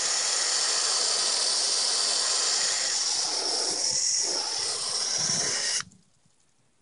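A spray of water hitting a plastic welding helmet shell, a steady loud hiss that stops abruptly near the end.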